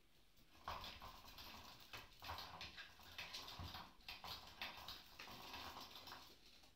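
Motorized butterfly cat toy running: a faint, rapid rattling clatter from its spinning mechanism as the butterfly whirls around, starting about half a second in and stopping near the end.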